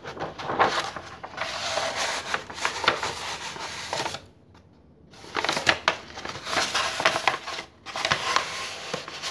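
A large sheet of thin card rubbing, scraping and crackling as it is rolled and bent by hand into a cone. It falls quiet for about a second midway.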